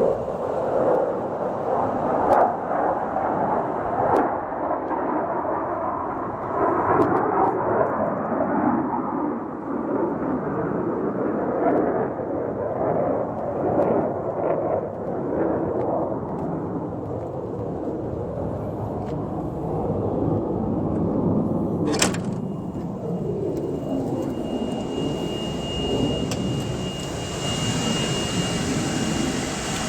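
A Blue Bird Micro Bird small school bus running: a steady rumbling noise with scattered rattles and clicks. About three-quarters of the way through there is a sharp click, followed by a steady high-pitched tone.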